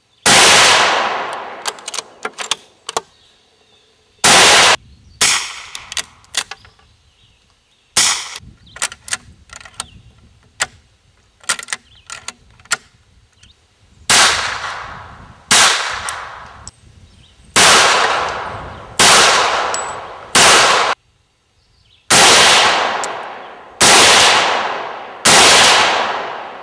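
About eleven single gunshots from scoped rifles and a handgun fired off a bench rest. Each crack is followed by roughly a second of echo dying away. Three shots come well spaced, then eight come faster, about one and a half seconds apart. Lighter metallic clicks sound between the first few shots.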